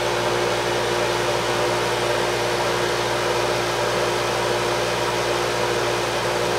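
Harbor Freight dust collector, used as a laser cutter's exhaust fan, running steadily at full speed: an even motor hum under a broad rush of air, measured at about 71 dB.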